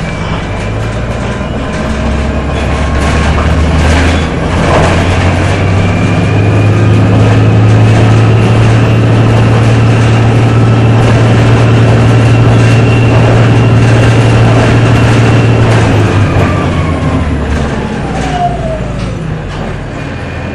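Inside a 2007 Orion VII diesel-electric hybrid bus under way: the diesel engine's low drone climbs and holds steady, with the electric drive's whine above it. Both fall away near the end as the bus slows, the whine dropping in pitch.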